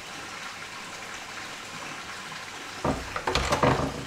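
A wooden latch on a carved wooden door being worked by hand: a quick cluster of several knocks and clunks about three seconds in, over a steady background hiss.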